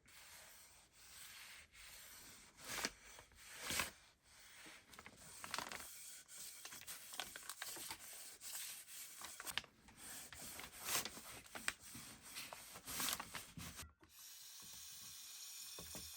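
Irregular rubbing strokes on the wooden ax handle, like sandpaper or a cloth worked back and forth by hand. Some strokes are louder, near 3 and 4 seconds in. The strokes stop abruptly about 14 seconds in, giving way to a steady hiss.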